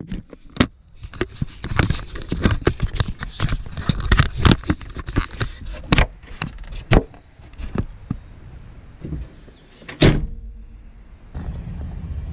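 Irregular knocks and clattering around the Chevy Traverse, with one loud bang about ten seconds in. Near the end a steady low hum from the running engine takes over.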